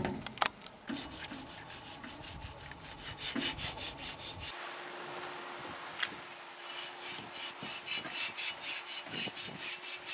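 Rapid back-and-forth hand rubbing or scraping strokes, about five a second, in two runs with a short pause near the middle and a single click in the pause. A faint steady hum sits underneath in the second half.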